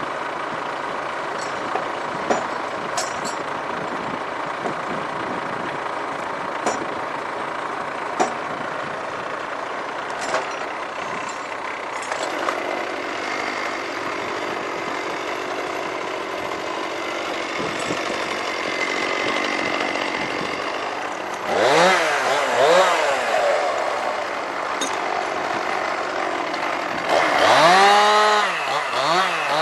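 New Holland T5070 tractor's diesel engine running steadily, with a few sharp clicks. About two-thirds of the way through, a chainsaw starts revving, its pitch rising and falling with the throttle, and it revs hard again near the end.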